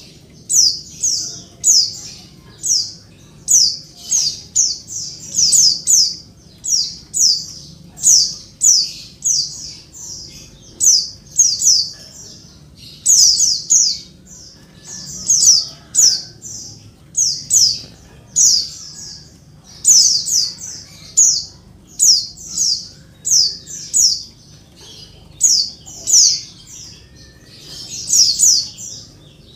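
Female white-eye (pleci) calling noisily: short, high, downward-sweeping notes in quick clusters of two to four, repeated over and over without pause. It is a female's call to a male, used to provoke males into answering and singing.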